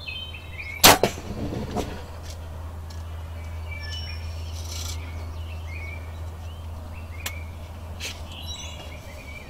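A compound bow shot at a wild turkey about a second in: one sharp, loud crack, followed by a few softer knocks. Songbirds chirp throughout over a steady low hum, and two more short sharp clicks come near the end.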